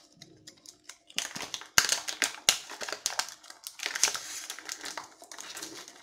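Plastic blister pack and its cardboard backing crinkling and rustling as they are worked open by hand, with a few sharp clicks. Quiet for about the first second.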